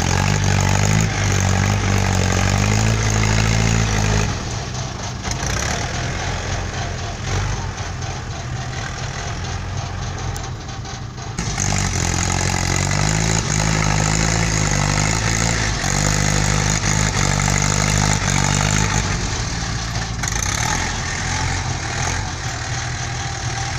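Heavy diesel engines of a bogged dump truck and the machine pushing it, running hard under load, louder for the first few seconds and again through the middle stretch.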